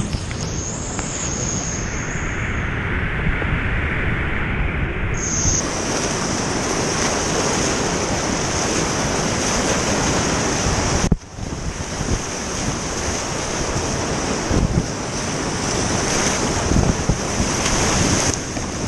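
Loud, steady rush of whitewater from river falls and rapids running high at about 6000 CFS, with wind buffeting the microphone. The sound drops out briefly about eleven seconds in.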